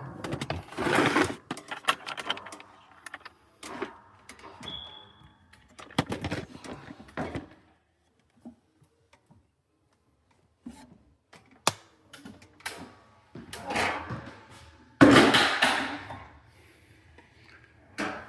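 Handling noise from work on a wall thermostat: irregular clicks, knocks and rustles, with a brief high beep about five seconds in and a quiet spell around the middle.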